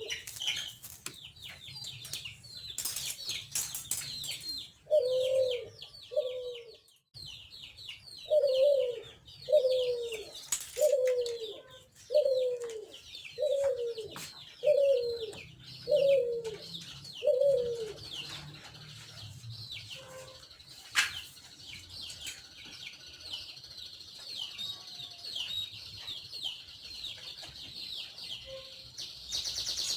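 Birds calling: a deeper bird repeats a falling call about once a second for around ten calls, then stops. Small birds chirp high and steadily throughout, with a few sharp knocks in between.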